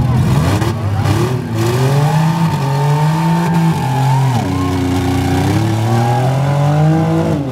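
Six-cylinder demolition derby car's engine revving hard as it spins its wheels in the dirt: the pitch climbs steadily, drops off about four seconds in, then climbs again and falls away at the end.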